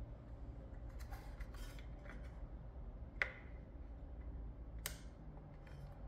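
Handling sounds from a Samsung Odyssey G6 monitor stand column and its plastic cable clip: light rustles and small plastic clicks, with one sharp click about three seconds in and a smaller one near five seconds, over a low steady hum.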